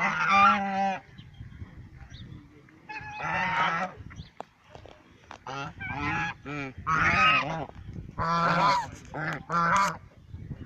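Domestic waterfowl honking: a series of about eight loud, harsh calls with short pauses between them.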